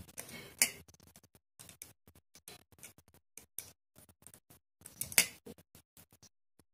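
Hands working wires into the terminals of a plastic switch plate: a run of small, irregular clicks and scratches, louder about half a second in and again about five seconds in.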